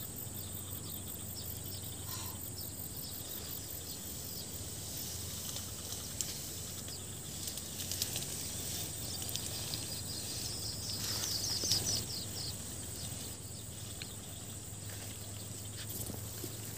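Outdoor ambience of steady high-pitched insect chirring, with a run of quick, repeated bird-like chirps through the middle and a few faint clicks.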